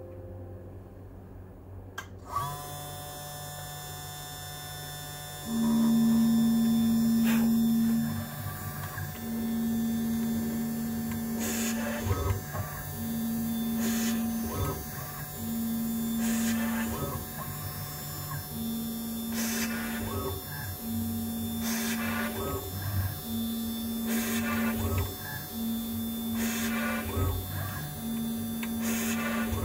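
CNC machine milling a PCB: the spindle starts with a high whine about two seconds in. After that a loud low motor hum switches on and off about ten times, each for one to three seconds, as the axes move between cuts.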